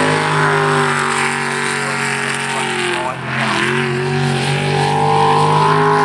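V8 jet sprint boat running hard through the course, its engine note steady, then dipping briefly about halfway through and climbing again.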